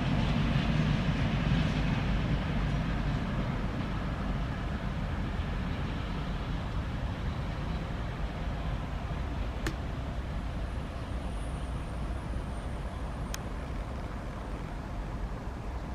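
ČD Class 754 'Goggle' diesel locomotive running light, its low engine rumble fading gradually as it draws away. Two short clicks in the second half.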